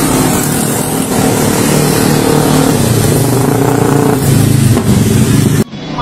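Loud storm noise of strong wind and heavy rain buffeting the microphone, with a low rumble underneath; it cuts off suddenly near the end.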